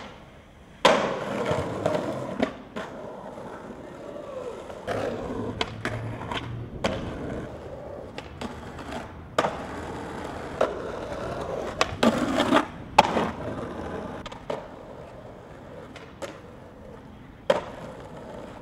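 Skateboard wheels rolling on asphalt, broken by repeated sharp tail pops and landing smacks of the board, the loudest about a second in and again near two-thirds through.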